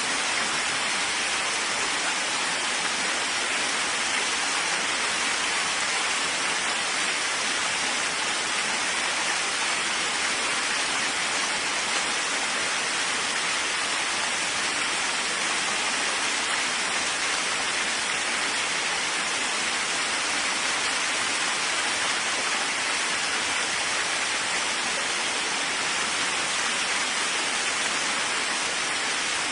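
Steady rain falling, an even hiss that holds level throughout with no thunder claps or separate drops standing out.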